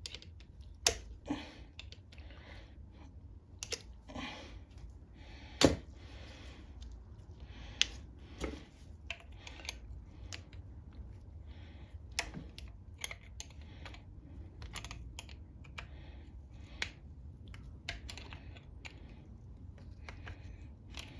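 Irregular clicks, taps and short scrapes of hand work on a small engine's plastic cover as it is being worked loose, with one sharper knock about six seconds in.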